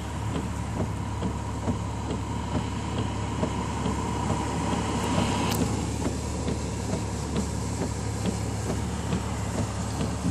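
Steady low hum inside the cabin of a stopped car with its engine idling, with scattered light ticks of rain hitting the car.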